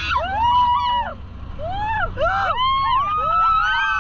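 Several passengers shrieking and whooping in overlapping rising-and-falling cries, more of them joining in over the second half, over the steady low rumble of the dune buggy and wind.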